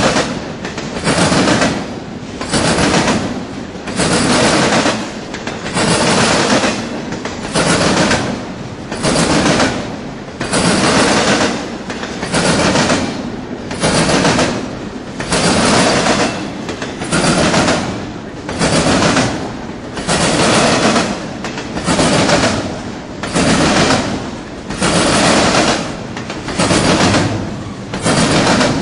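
Double-stack container freight train passing close by, its wheels clattering on the rails in a steady rhythm, with a loud burst about every 1.3 seconds as each car goes past.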